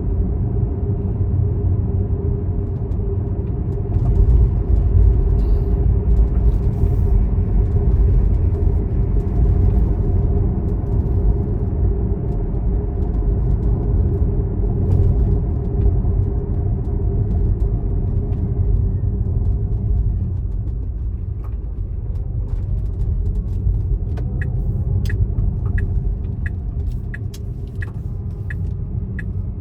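Motor vehicle running, a steady low rumble with a few held tones. Near the end, sharp clicks come about twice a second.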